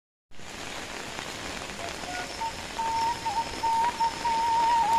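Steady rain falling, an even hiss of drops on the ground and roofs. About halfway through, a thin wavering high tone comes in over it.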